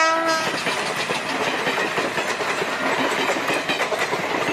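Passenger train passing close by. Its horn sounds at the start and stops about half a second in, followed by the steady rushing noise of the coaches going past with faint clicking of wheels over the rails.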